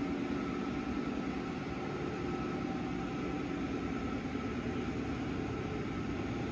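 Steady background hum and hiss with a few faint steady tones; no speech or music.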